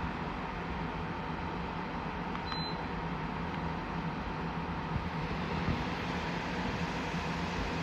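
TCL TAC-12CPA/MZ portable air conditioner running with a steady whir and a low hum, with one short high beep about two and a half seconds in.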